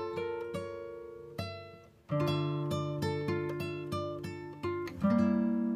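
Background music: acoustic guitar picking single notes in a steady run, with fuller chords struck about two seconds in and again near the end.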